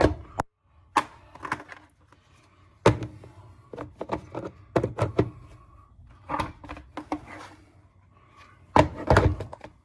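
Hard plastic knocks and clicks of Milwaukee Packout bins and magnetic holders being handled and fitted together, a series of sharp taps at irregular intervals, loudest about three seconds and nine seconds in.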